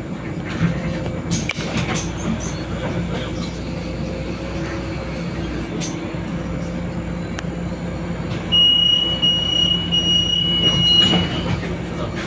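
Solaris Urbino 18 III articulated city bus driving, heard from inside at the front: a steady hum of the drivetrain with road noise. From about eight and a half seconds in, a high electronic beep sounds for about three seconds.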